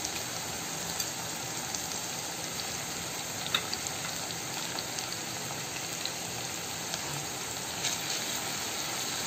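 Sliced onions frying in hot oil in a kadai: a steady sizzle with a few light crackles.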